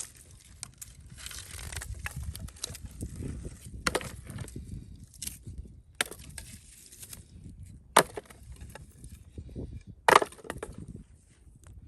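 Firewood cracking and knocking: a few sharp cracks about two seconds apart, the last two the loudest, over a low rumble.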